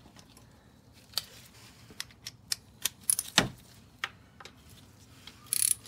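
Irregular sharp metallic clicks and clinks, about ten of them, as a 10 mm socket, extension and ratchet are handled and fitted together. A brief rattle comes near the end.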